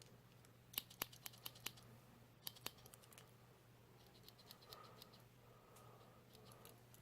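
Small spring-loaded scissors of a Victorinox Handyman Swiss Army knife being snipped: faint, sharp metal clicks. There is a quick run of five about a second in, two more around two and a half seconds, and softer ticks near five seconds.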